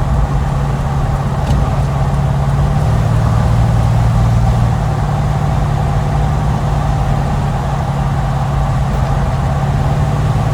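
Small-block Chevy 350 V8 running through newly fitted glasspack mufflers: a steady, low exhaust drone that swells slightly a few seconds in.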